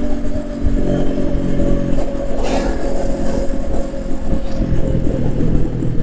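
Exhaust note of a 2021 Honda CB500X's parallel-twin engine running at a steady pitch that drifts slightly lower, with a brief hiss about two and a half seconds in.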